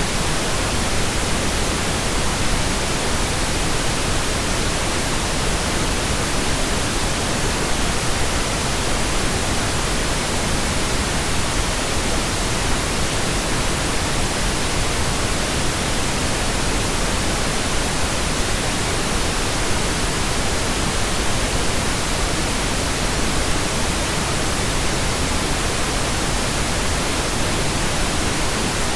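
Steady pink noise generated in Audacity: an even, unchanging hiss spread across all pitches.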